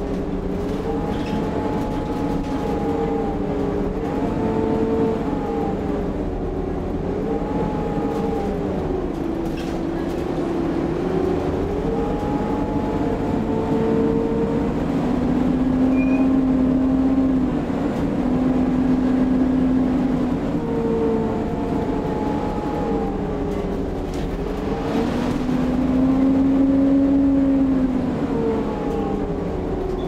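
Volvo B7TL double-decker bus driving, heard from inside on the upper deck. Its engine and ZF automatic gearbox give a steady running noise with a whine that rises and falls in pitch several times as the bus speeds up, slows and changes gear.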